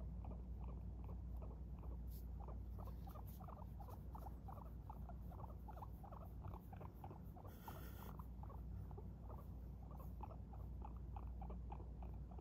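Guinea pig making faint, soft, short calls in a steady rhythm, about four to five a second. There is a brief rustle of cloth near the middle.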